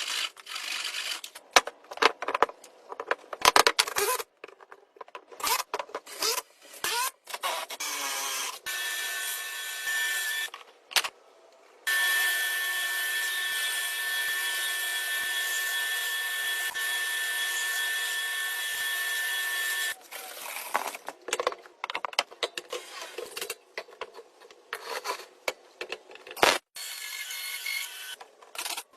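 Woodworking tools at work: scattered sharp taps and knocks, and a small power tool's motor running steadily for about eight seconds in the middle, with a shorter run just before it.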